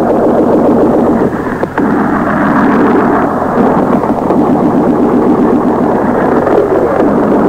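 Shortwave radio reception: loud, rough static and hiss with faint whistling tones that slide in pitch, dull with no treble, dipping briefly about a second and a half in.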